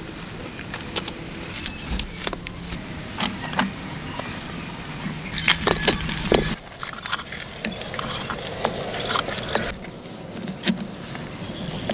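Stones clinking, knocking and scraping against each other as they are set by hand into a mud-packed stone wall: scattered irregular clicks and knocks. Under them a low steady hum stops suddenly about halfway through.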